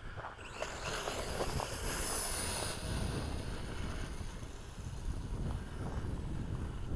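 Small Bojiang S1 quadcopter's brushed motors and propellers whining high-pitched in flight, loudest about two seconds in and easing after that. Wind rumbles on the microphone underneath.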